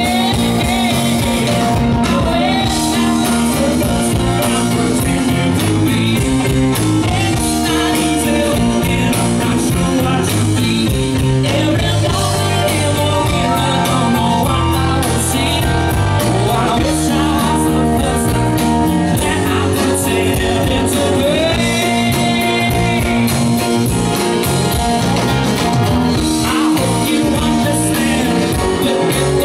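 Live rock band playing a song: a male lead vocal sung over electric guitar, bass guitar, drum kit and keyboard, loud and steady.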